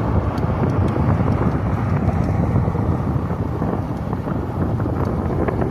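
Wind rushing over the microphone of a camera on a moving bicycle, with steady tyre and road noise underneath.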